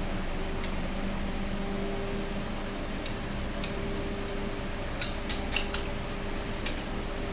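Light metallic clicks and taps of tools on metal parts during valve work, with several in quick succession about five seconds in, over a steady electrical hum.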